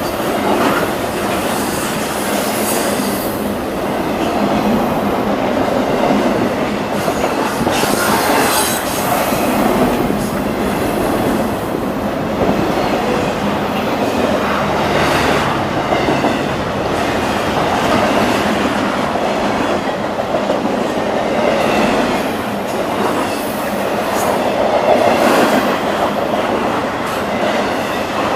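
Train running on the rails, its wheels clicking over the rail joints at uneven intervals, with some wheel squeal mixed in.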